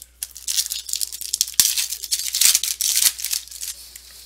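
Foil trading-card pack wrapper being torn open and crinkled, a dense crackling rustle with a few sharp clicks that dies away near the end.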